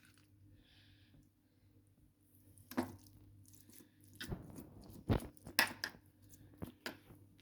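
Spoon scooping a sticky fig, honey and olive-oil mixture into a jar: faint, and after a quiet start a few scattered clicks and soft squelches of the spoon against the bowl and jar.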